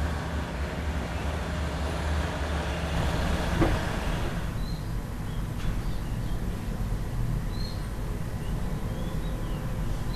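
Steady rumble of a train and station noise with a click a little over three seconds in. About four and a half seconds in it gives way to a quieter outdoor background with a few short bird chirps.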